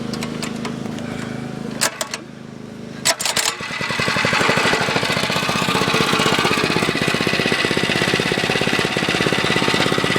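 Motovox mini bike's small engine: a steady low hum at first, a few sharp clicks about two and three seconds in, then the engine running faster and louder with a rapid, even pulsing.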